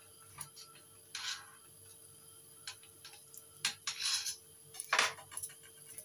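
Sliced chilli pieces dropping into a metal wok and small kitchen handling noises: scattered light clicks and taps, with a few brief louder clatters, the loudest about five seconds in. No frying sizzle is heard.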